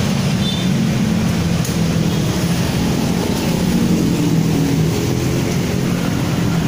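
Steady low engine-like rumble, like a motor vehicle running nearby, holding even throughout.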